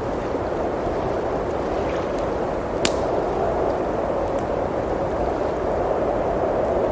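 Steady blizzard wind blowing, with a few faint crackles from a wood fire and one sharp pop about three seconds in.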